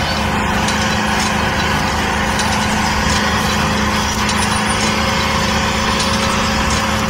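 Small motor running steadily with an even mechanical hum.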